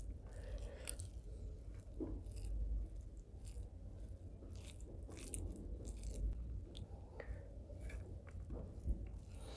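Close-miked eating sounds: chewing with scattered short, crackly mouth clicks, while fingers mix rice into curry sauce.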